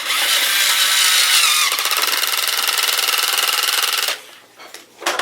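Battery-powered toy power drill from a Battat Take-A-Part set running with a high whine that turns to a fast rattle about halfway through, then stopping abruptly about four seconds in.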